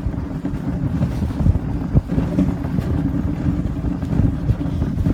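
Wind buffeting the microphone over a steady low rumble, as from a moving dog sled.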